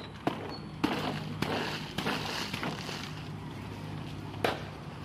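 Leafy plant stalks rustling, with about five sharp cracks as a clump of Calathea lutea stalks is handled and pulled apart. A steady low hum runs underneath.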